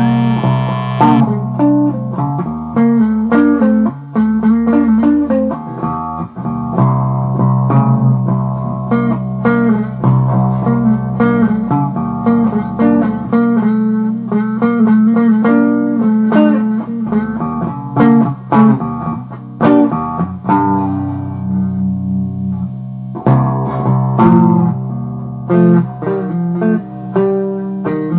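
Blues guitar music: a run of plucked guitar notes over steady low bass notes.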